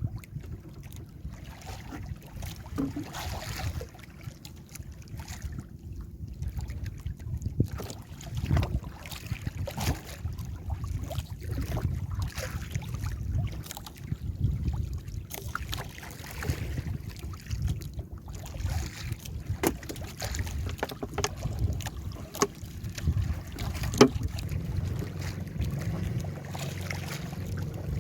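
Small fishing boat at sea in rough water: a steady low rumble of wind on the microphone and water against the hull, with scattered knocks and clatters throughout.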